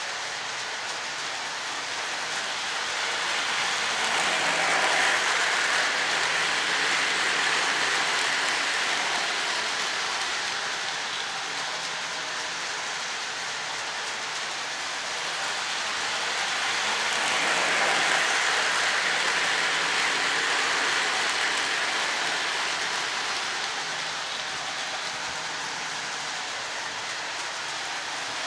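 Lionel O-gauge model train with a GE U36C diesel running around its track loop, wheels and motor making a steady whirring rumble. It swells louder twice as the train comes around the part of the loop nearest the microphone.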